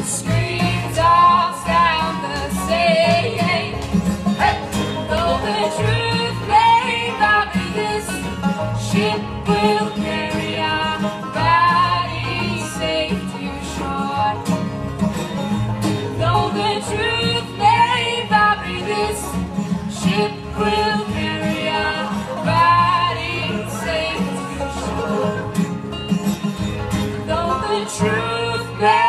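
Live acoustic bluegrass band playing: strummed acoustic guitar, banjo and plucked upright bass under a melodic lead, with voices singing along.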